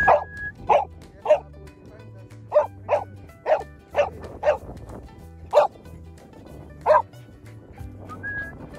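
A dog barking repeatedly in excitement, about ten sharp barks at uneven intervals, over background music.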